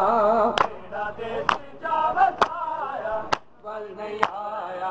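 Men singing a Punjabi noha (mourning lament) in a wavering chant. Sharp hand strikes on bare chests (matam) land about once a second, keeping its beat.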